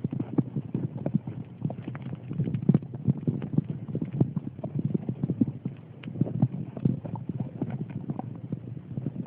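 Irregular dull crunches and thumps, several a second, like footsteps running and trampling in snow.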